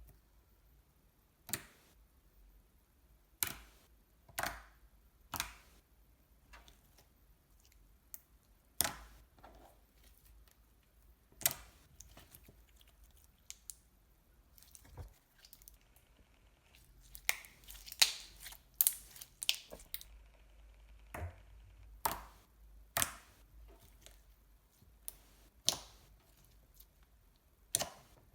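Clear slime being pressed, folded and stretched by hand, giving sharp wet clicks and pops every second or two, with a quicker run of pops about two-thirds of the way through.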